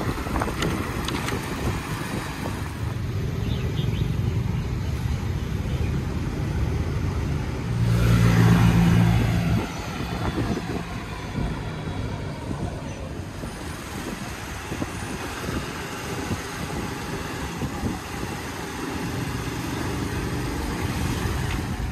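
City street traffic of cars and scooters heard from a moving bicycle, with wind rushing over the microphone. About eight seconds in, a motor engine hums close by for a second and a half and is the loudest sound.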